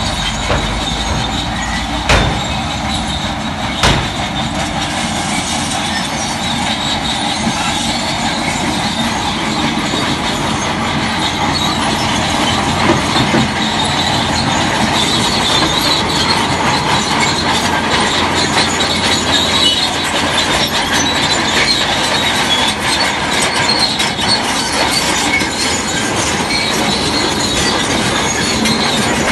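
Crawler bulldozer working: its diesel engine runs steadily while the steel tracks clank and squeal. Two sharp knocks come in the first few seconds.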